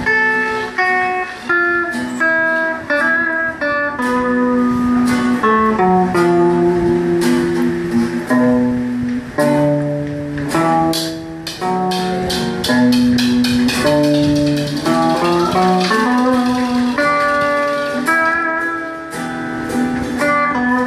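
Electric guitar through a small practice amp and a nylon-string classical guitar jamming together, improvising blues-scale lines note by note, with clusters of quick picked or strummed strokes around the middle.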